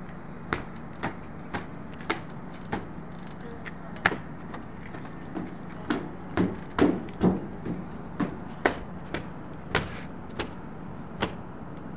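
A cloth being flicked and slapped against a car's body to knock the dust off: a series of sharp slaps about twice a second, loudest and closest together a little past the middle. A steady low hum runs underneath.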